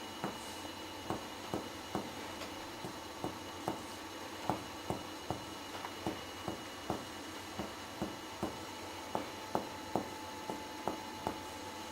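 Finger-on-finger percussion of the chest over a patient's back: a steady series of short soft taps, about two to three a second. Each tap brings out the clear resonant lung note, the normal percussion sound over healthy lungs.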